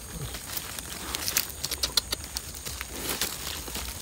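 Irregular crackling and rustling of dry leaf litter and twigs being disturbed, with a dense run of sharp snaps in the middle.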